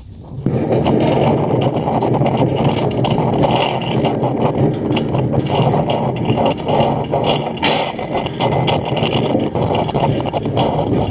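Generator engine running steadily and loudly, cutting in suddenly about half a second in.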